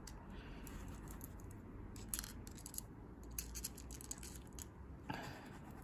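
Faint scattered clicks and light rattles of small screwdriver bits being handled and slotted back into the storage in a screwdriver pen's handle.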